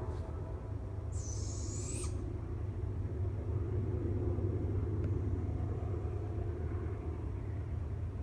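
A single high, whiny screech, about a second long and rising then falling, about a second in, from an unidentified animal in a tree. A passing train rumbles low underneath throughout.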